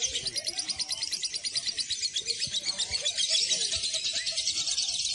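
Lovebird singing a rapid, unbroken chattering trill of high chirps.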